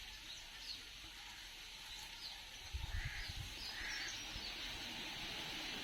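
Outdoor background hiss with many short, high bird chirps scattered through it, and a few soft low knocks starting about three seconds in.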